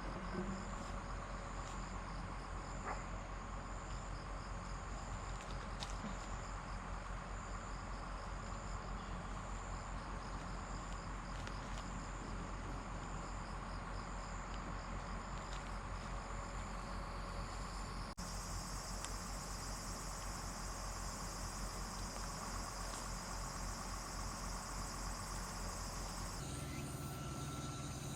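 Insects, likely crickets, chirping in an even repeating pulse over a constant background hiss. The background changes abruptly twice, about eighteen seconds in and again near the end.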